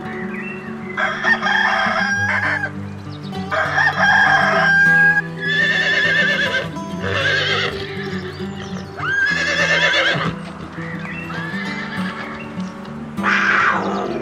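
A rooster crows twice, each crow ending on a long held note. Then horses whinny twice with a quavering pitch, all over background music with steady low notes.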